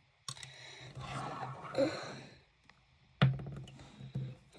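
A long breathy sigh, then a single sharp plastic click about three seconds in as a speedcube part is handled.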